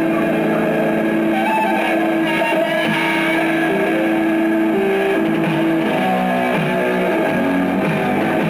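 Electric guitar playing in a rock band rehearsal: a long held note for most of the first six seconds, then shorter changing notes.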